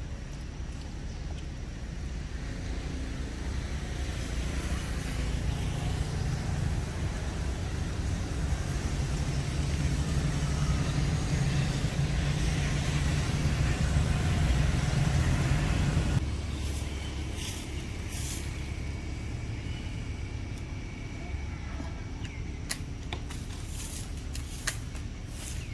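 A motor vehicle's engine rumbling, growing louder over about ten seconds and then cutting off suddenly. A few sharp clicks follow near the end.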